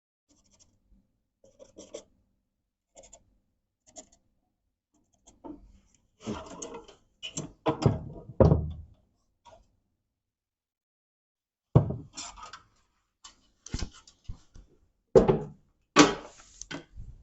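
Irregular knocks, clunks and scraping of hand work, with things handled and bumped against a hard surface. Faint clicks come first, then a cluster of heavier knocks, and a few sharp knocks follow later.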